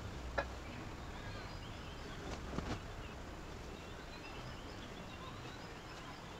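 Outdoor ambience: short, faint high chirps scattered over a steady background hiss, with a sharp click about half a second in and a couple of light knocks around two and a half seconds in.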